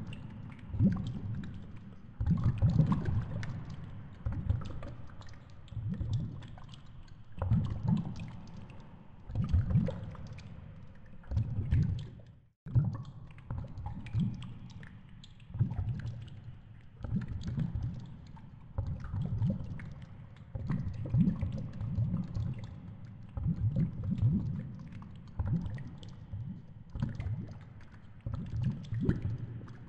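Underwater noise picked up by a GoPro hanging on a fishing rig near the seabed: low surging swells every couple of seconds, like water shifting against the camera housing, with scattered light clicks and ticks. There is a short drop-out about twelve seconds in.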